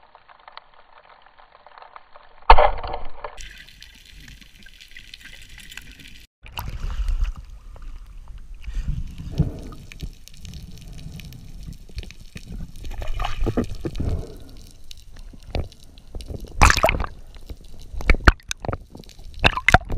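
Underwater recording of a speargun firing: one sudden loud crack about two and a half seconds in. After it come muffled water rumble and gurgling, scattered knocks, and a few sharp clicks near the end while the speared zebra seabream is handled.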